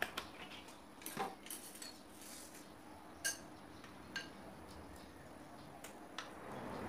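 A plastic spoon stirring thick slime in a glass bowl, with scattered clinks of the spoon against the glass, one ringing briefly about three seconds in, and some soft wet stirring noise.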